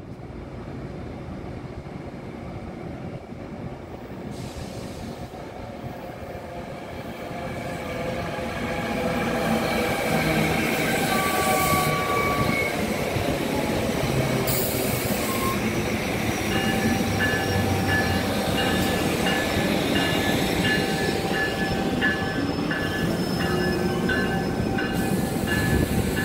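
Passenger trains running past close by: a SEPTA electric commuter train and Amtrak passenger cars, their rumble and wheel noise building over the first ten seconds, with gliding whining tones. From about two-thirds in comes a steady beat of short, high wheel squeaks.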